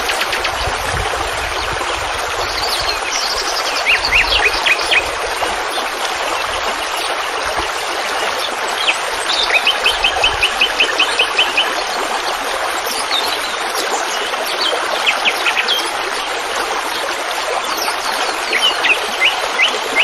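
Small birds chirping in short quick runs of high notes, one run near the middle about eight notes long, over the steady rush of running water.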